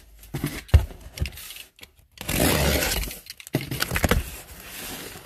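Cardboard boxes being handled: a few knocks and taps, then about a second of cardboard scraping and rubbing as a smaller box is pulled out of a larger one and its flaps are opened, then more light knocks and rustling.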